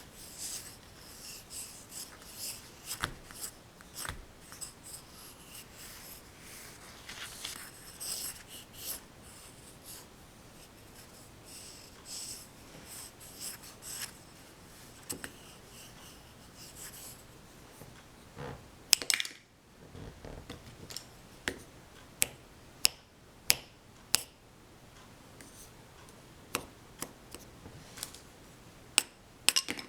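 Pencil scratching across paper in short sketching strokes. About two-thirds through there is a louder handling noise, followed by a series of sharp, separate clicks and taps.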